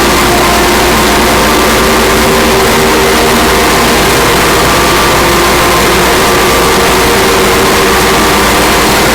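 A loud, heavily distorted electronic drone: dense hiss with several steady held tones over a strong low hum, unchanging throughout. It is a sound effect saturated by audio-effect processing.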